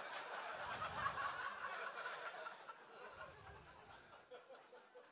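Audience laughing at a stand-up punchline. The laughter is fullest in the first couple of seconds, then fades away.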